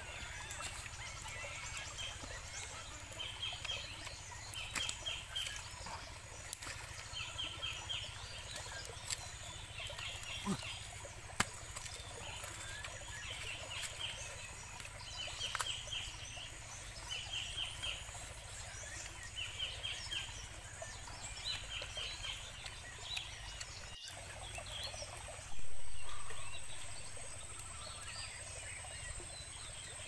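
Forest ambience: a bird calls in short bursts of quick high notes, one burst every one and a half to two seconds, over the steady rush of a small stream. Near the end a sudden loud sound fades away over a couple of seconds.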